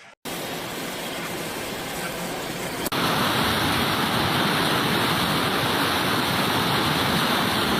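Rushing water, a steady even noise with no distinct events, in two clips: it begins with a hard cut just after the start, and a second cut about three seconds in brings a louder, brighter stretch.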